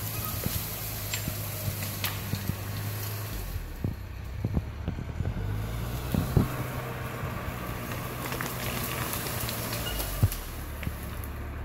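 Diesel engine of an International TD8G crawler dozer running, its note dropping and rising a couple of times as the load changes, with scattered sharp knocks and snaps.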